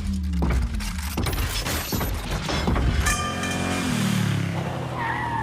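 Sci-fi film robot sound effects: rapid metallic clanks, clicks and creaks of moving mechanical parts, layered with pitched mechanical whines that slide in pitch, one gliding near the end.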